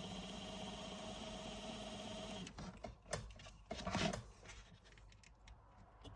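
Small electric motor and gears of an N gauge TRIX Britannia locomotive running steadily with a hum and a whine, freshly oiled, at about 8 volts; it stops about two and a half seconds in. A few clicks and knocks follow, the loudest about four seconds in.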